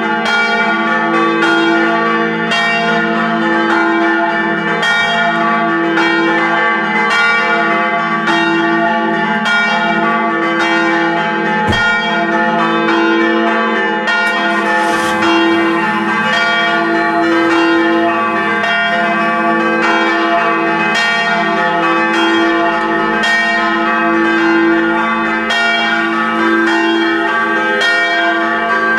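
Church tower bells ringing a continuous peal, rung by hand by ringers in the belfry: several bells sound together, with fresh strikes coming about once a second over their steady ringing.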